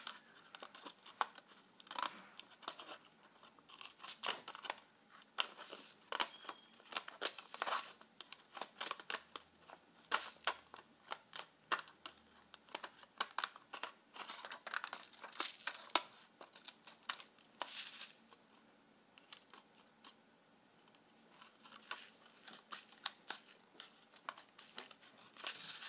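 Small scissors snipping through a thin clear acetate plastic sheet, an irregular run of sharp snips with crinkling of the plastic as it is turned, with a brief pause about three-quarters of the way through.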